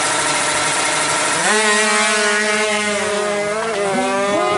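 Two-stroke 155cc drag bike engine at full throttle as it launches off the start line. At first it is a loud, rough haze of noise; about a second and a half in, a clear engine note rises and holds high, then shifts pitch near the end as the bike pulls away.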